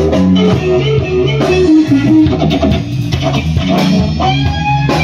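Live rock band playing: electric guitar and bass guitar over drums.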